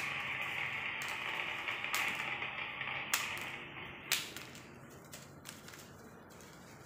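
Throw-down bang snaps cracking on a tiled floor: sharp snaps about once a second, the loudest about four seconds in, then several smaller ones in quicker succession. A steady background hiss fades out about four seconds in.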